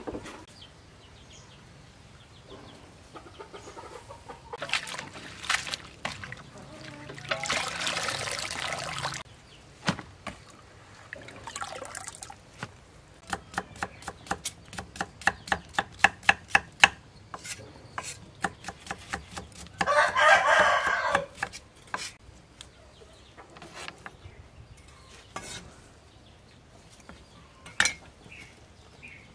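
Kitchen knife slicing cucumber on a wooden cutting board: a quick, even run of chops, about four a second, midway through, with scattered single knocks before and after.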